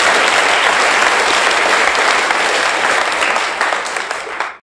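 Audience applauding at the end of a comic song on an old gramophone record, a dense steady clapping that eases slightly and then cuts off abruptly just before the end.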